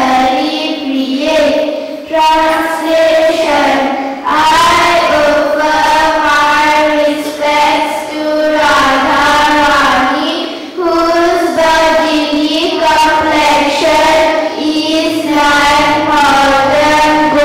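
A group of children singing together, amplified through hand-held microphones, in sung phrases of held notes that break about every two seconds.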